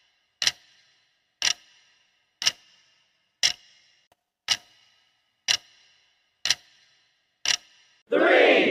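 Clock-tick sound effect of a countdown timer: eight sharp ticks, one a second, each with a short ring. Near the end a much louder burst of shouting voices cuts in.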